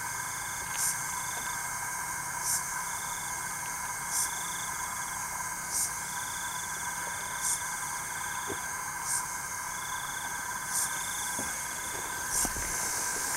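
Night chorus of calling insects: steady high-pitched trilling, short trills in groups, and a brief high chirp repeating evenly about every second and a half.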